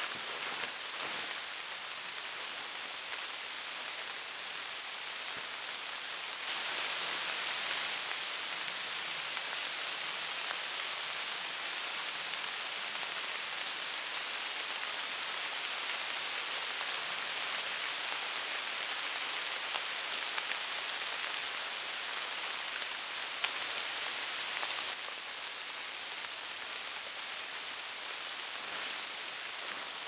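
Steady rain falling on the leaves of the forest, an even hiss that grows louder about six seconds in and eases again a few seconds before the end.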